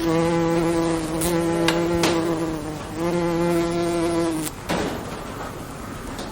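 Bee buzzing in a steady, even-pitched drone for nearly three seconds, then again for about a second and a half after a brief pause, with a few faint clicks. It stops a little past the middle, leaving a low background hiss.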